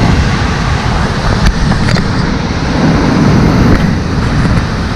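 Strong wind buffeting the microphone over breaking surf: a loud, steady rush heaviest in the low end.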